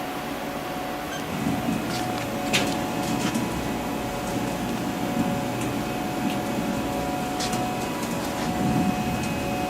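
Chip auger of a Haas VF-4 vertical machining center running forward: a steady mechanical hum with a low rumble that grows stronger about a second in, and a few scattered sharp clicks.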